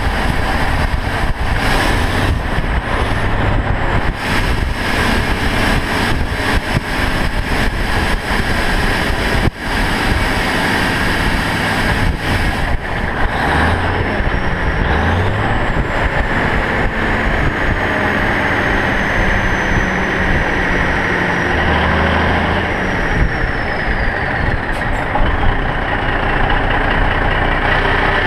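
ERF EC14 lorry's 410 hp Cummins 14-litre diesel running at road speed, heard from a GoPro mounted on the outside of the cab. Heavy wind buffets the microphone over the engine and tyre noise, and the engine note shifts twice.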